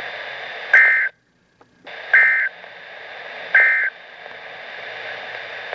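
Emergency Alert System end-of-message code: three short bursts of two-tone digital data, about a second and a half apart, over a steady radio hiss.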